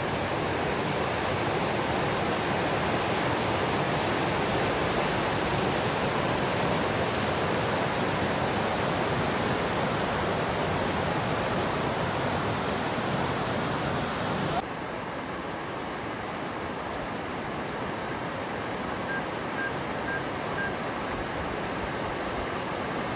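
Steady rush of falling water from the Little Mashel River waterfalls. About two-thirds of the way through it cuts abruptly to a quieter, duller rush.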